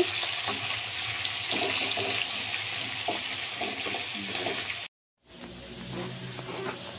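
Chopped onions and garlic frying in oil in a metal kadhai: a steady sizzle, with the scrape and light knocks of a wooden spatula stirring. The sizzle cuts off abruptly about five seconds in, leaving a quieter hiss.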